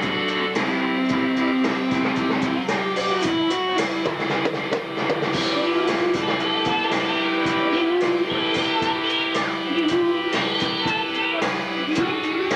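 Recorded song with guitar, drum kit and singing, playing at a steady level.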